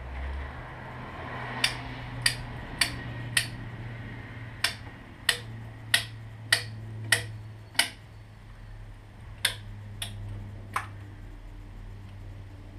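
Sharp metallic clicks from hand-tool work at a race motorcycle's front wheel during a tyre change, about one every 0.6 seconds in three runs of four, six and three, over a steady low hum.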